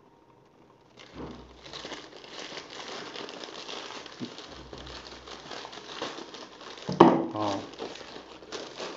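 Crinkling and rustling of a plastic bubble-padded shipping mailer being cut with scissors and pulled open, starting about a second in. About seven seconds in there is a sharp click, followed by a brief vocal sound.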